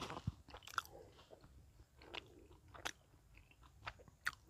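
A person chewing: faint, scattered mouth clicks and small crunches.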